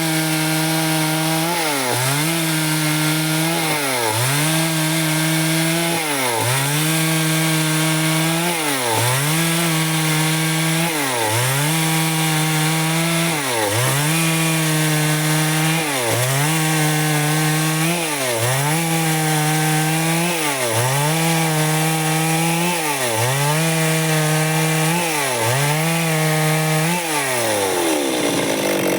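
Stihl two-stroke chainsaw cutting wood under load, ripping boards from a log. The engine note sags briefly about every two seconds and picks straight back up, then falls away near the end.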